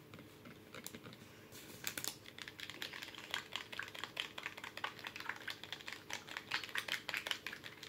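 Rapid, irregular clicking and crackling of a small plastic container being handled and opened, starting about a second and a half in.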